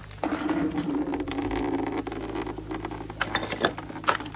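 Rubber buckets of water and ice being handled and emptied: splashing with scattered knocks and clatters of ice against the bucket, over a steady low hum.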